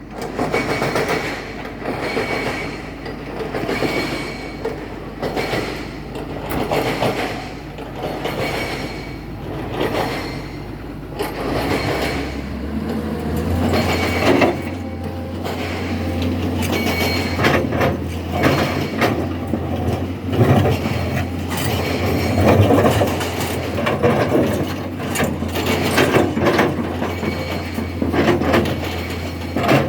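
Excavator running, its steady engine hum stepping up in pitch about twelve seconds in, with a rhythmic knocking roughly once a second.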